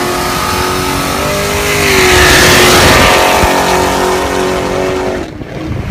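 2011 Chevrolet Caprice 9C1's V8 running loud at high, nearly steady revs, its pitch edging up and then holding. A louder rushing noise swells about two to three seconds in, and the engine sound drops off sharply about five seconds in.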